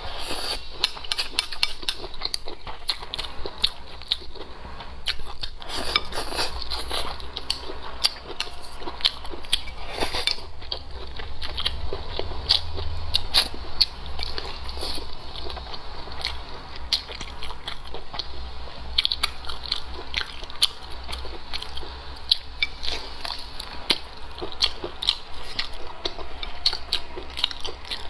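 Close-miked eating: a person biting and chewing braised pork trotter with rice, a dense run of short clicks and smacks throughout.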